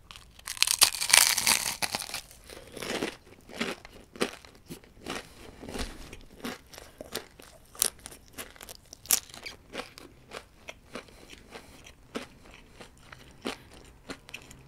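A person biting into a giant homemade fried, battered chicken-breast nugget, picked up close by the microphone. The crisp coating crackles loudly for about two seconds, then chewing follows with irregular crunches.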